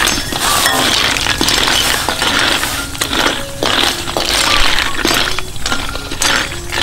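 Snail shells clattering and clinking against each other and the metal wok as a metal spatula stirs them in the hot, steaming pan, in several stirring strokes with short pauses between.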